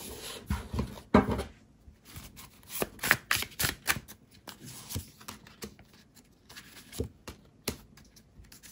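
Tarot cards being handled and dealt onto a table: irregular light clicks and taps of card stock with a few short swishes of cards sliding.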